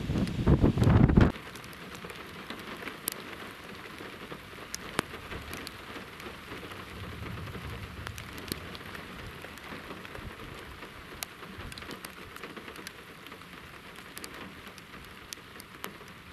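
Thunder rumbling loud and low, stopping abruptly about a second in, then steady rain falling with scattered drops tapping close by.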